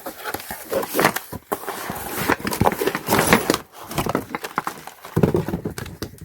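Seat-belt mounting bolts and washers being handled in their packaging: an irregular run of small clicks and rustling.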